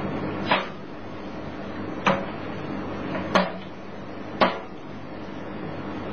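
Metal computer tower case being handled, with four short sharp knocks and clicks spread over the first four and a half seconds, over a low steady hum.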